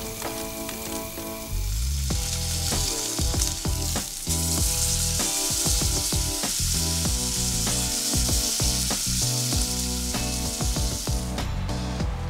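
Steak sizzling as it sears in a frying pan on a gas camp stove, a steady crackling hiss that fades out near the end, over background music.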